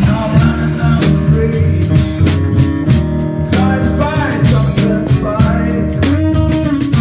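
Music: a song with guitar over a steady drum beat.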